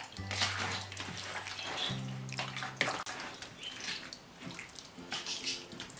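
Wet squelching and sloshing of chicken pieces being mixed by hand in a lemon-juice and spice marinade, in repeated strokes, over background music with long held notes.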